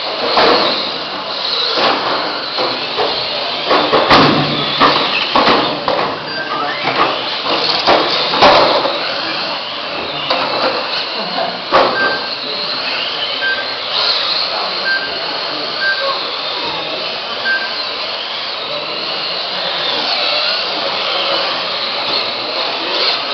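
Several radio-controlled mini racing cars running on a track. Their small electric motors whine up and down with the throttle, and there are sharp knocks of cars hitting barriers or each other, mostly in the first half. Short identical beeps of the lap-timing system sound every second or so in the second half.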